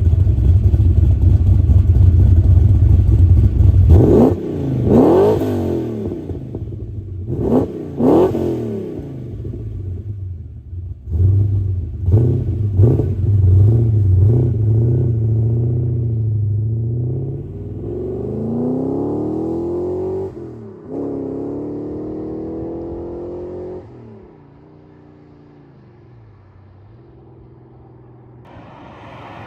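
Holden 5.0-litre 304 V8 of a VS SS Commodore, freshly rebuilt with a new camshaft, rumbling loudly and then revved sharply twice. It then pulls hard, its pitch climbing, dropping suddenly at a gear change and climbing again, before easing off to a quieter run.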